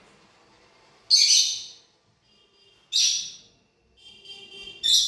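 Lorikeet giving three harsh, shrill screeches about two seconds apart, with softer chattering just before the last one.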